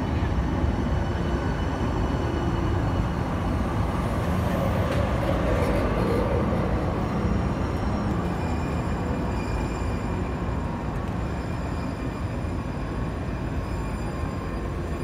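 San Diego Trolley light-rail train running alongside the platform: a steady rumble of steel wheels on rails, with several thin, high, steady whine tones from the electric drive.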